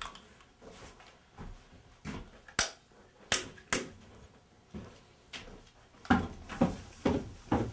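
A series of sharp knocks and clacks, scattered at first, then a steady run of about two a second over the last couple of seconds.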